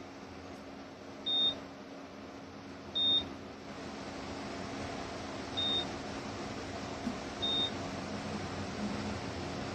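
Philips 5000 Series tower fan running with a steady airy hum, and four short, high beeps from its controls as settings are changed, spaced irregularly one to two and a half seconds apart.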